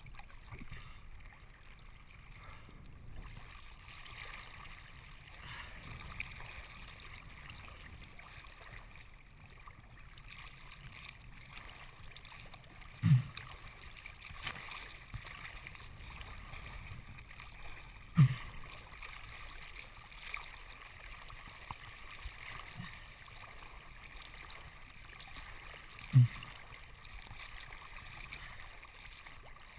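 Choppy seawater lapping and sloshing around a camera at the surface, a steady hiss of small waves and wind. Three heavy, low thumps a few seconds apart in the second half, as waves slap against the camera.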